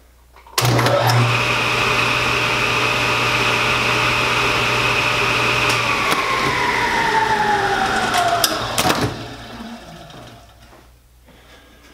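Table saw motor starting abruptly with a steady hum and high whine, running for about five seconds, then switched off and spinning down with falling tones. As it winds down come a few sharp clicks from the pneumatic blast gate actuator, which opens and closes once more; the owner's theory is that the coasting motor sends power back through the lines and re-triggers the solenoid.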